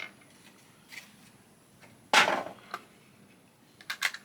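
Small plastic pieces of a Polly Pocket playset being handled: a few light clicks, with a short, louder burst of handling noise about two seconds in and two quick clicks near the end.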